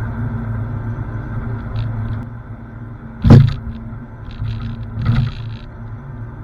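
Engine of a digging machine running steadily, with a loud clank about three seconds in and a smaller one about two seconds later, plus light clicks and rattles.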